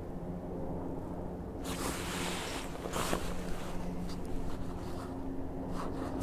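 Helicopter flying low nearby, a steady drone with a low hum. About two seconds in there is a brief rustle of a jacket.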